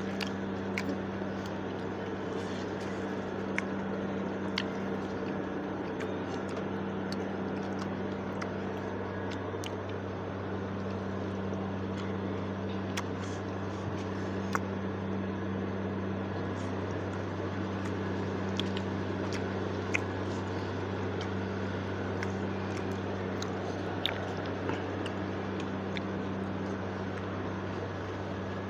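Steady low hum with scattered faint clicks and small taps, the sounds of people eating snacks.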